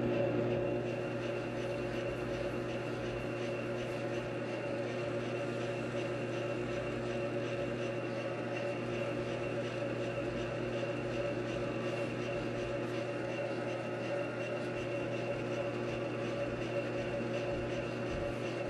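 Grizzly lathe running at a steady speed, its motor giving an even hum with several steady whining tones.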